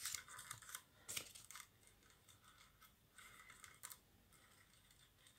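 Faint rustling and light clicking of painted rolled-paper weaving tubes being worked by hand, with a small tap about a second in and a short run of rustling and clicks past three seconds.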